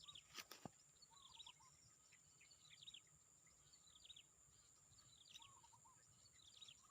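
Faint bird calling over quiet swamp background: short phrases of quick, high, descending notes repeated about once a second. A couple of light clicks in the first second.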